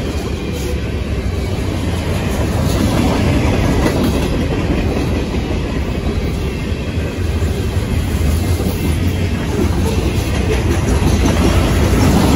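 Freight cars of a passing manifest train (tank cars, covered hoppers and gondolas) rolling by at close range: a loud, steady low rumble with wheels clattering on the rails.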